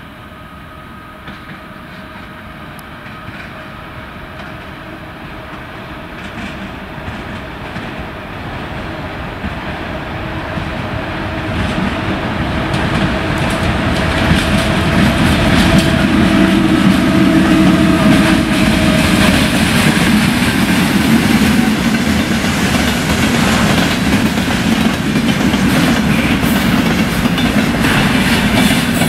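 A 2ES6 electric locomotive hauling a container train approaches and passes, getting steadily louder over about fifteen seconds, with a steady whine as it comes in. Then the container wagons roll by with a loud rumble and the clicking of wheels over the rail joints.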